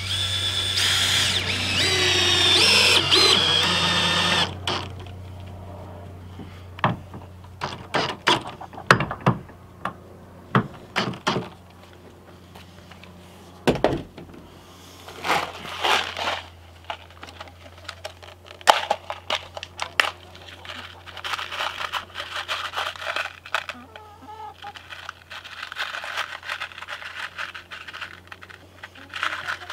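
Cordless drill driving a screw through a door hinge into plywood, its motor whirring for about four seconds. Then a run of sharp clicks and knocks as the drill and hardware are handled and set down, with rustling near the end.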